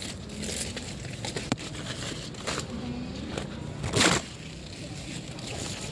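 Leafy plants rustling and crackling as they are pushed aside by hand, in several short bursts, with the loudest rustle about four seconds in.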